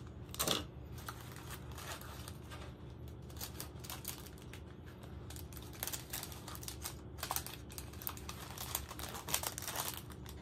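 Thin plastic drill bags crinkling and crackling as they are handled and cut apart, with small clicks of scissors snipping between them; the scissors are dull and barely cutting.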